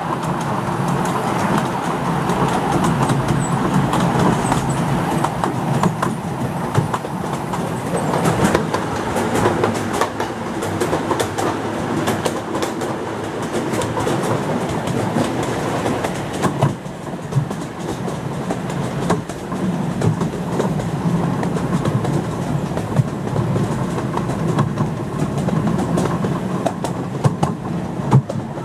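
7¼-inch gauge miniature steam train running, heard from an open passenger car: a steady rumble of wheels on track with frequent clicks as they pass over rail joints.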